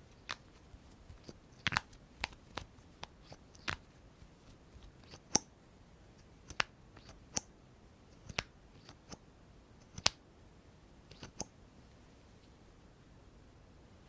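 Makeup containers and tools being handled: a series of sharp, irregular clicks and taps, with the loudest a little over five seconds in and again about ten seconds in.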